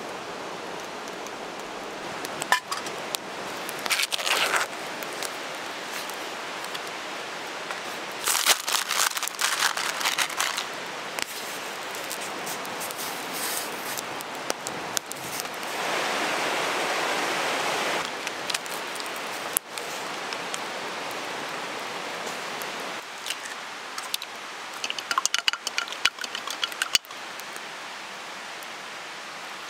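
Cooking over a small wood fire: a steady hiss of the fire and the boiling pot, with scattered crackles and clinks of a metal mess tin and utensils. The hiss swells for a couple of seconds about halfway through.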